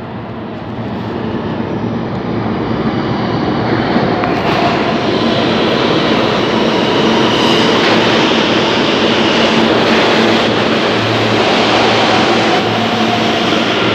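New York City subway train rumbling into the station along the platform, growing louder over the first few seconds, then holding a steady loud roar of wheels on rail.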